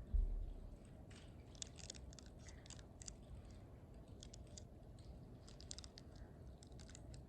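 Faint, irregular small clicks and crackles of communion bread being eaten, with a low thump just after the start.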